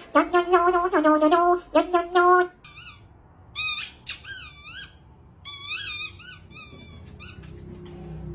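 A quick run of short, pitched squeaky notes for about two and a half seconds, then several bursts of high chirping squeaks that swoop up and down in pitch.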